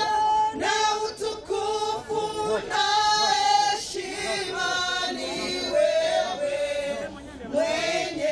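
A group of voices singing a Swahili praise hymn together, led by a woman singing into a microphone, with long held notes that slide between pitches.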